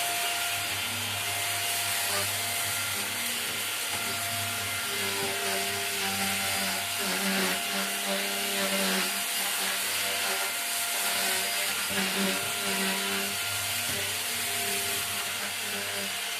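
Rowenta Air Force Flex 560 cordless stick vacuum running steadily while cleaning a floor, with a constant motor hiss and some shifting lower tones from the floor head.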